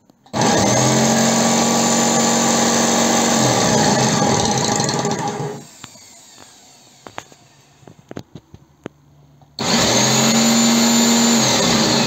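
Workshop vacuum switching on suddenly and running with a steady motor whine while it sucks up sawdust through its hose, then cutting off about five and a half seconds in. A few light clicks follow, and the vacuum starts again near the end.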